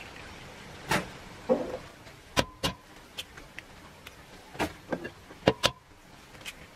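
Eggs being tapped and cracked on the rim of a plastic mixing bowl, one after another: a series of sharp knocks and cracks, several in quick pairs, some with a short ringing tone.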